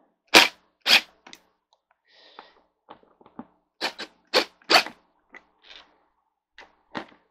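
Cordless impact driver run in about a dozen short trigger bursts, driving the bolts that hold a metal armrest bracket to a chair's seat pan. The loudest bursts come in the first second and again around four to five seconds in.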